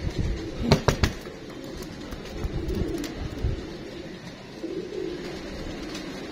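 Domestic pigeons cooing, low soft coos recurring every couple of seconds, with three sharp knocks close together about a second in.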